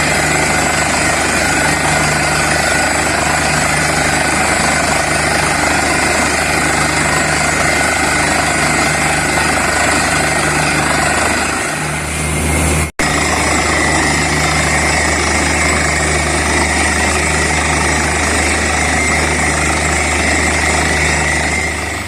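A borewell drilling rig and its air compressor running loudly and steadily, with a low engine hum under a dense clatter. The sound drops out for an instant about thirteen seconds in.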